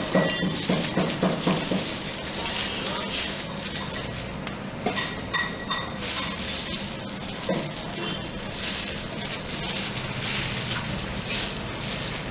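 Food-stall kitchen noise: a steady hiss with a quick run of knocks in the first two seconds and a cluster of sharp clicks around halfway.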